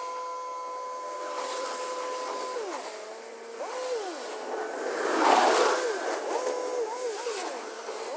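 Yanmar F195 diesel tractor and its rotary tiller, a steady whine heard from afar. The pitch drops and climbs back several times as the tractor turns at the end of the field. A louder rush of noise comes about five seconds in.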